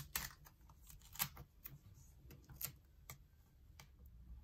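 Faint, scattered small clicks and taps of fingers and a tool working a laptop's display cable connector loose, with the sharpest click about a second in.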